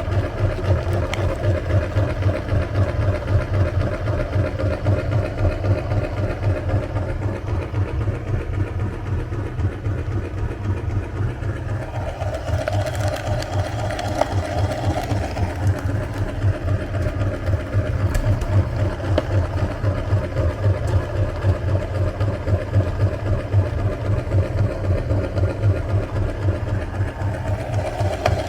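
Electric meat grinder running steadily with a rapid, even pulsing as it grinds ice cream.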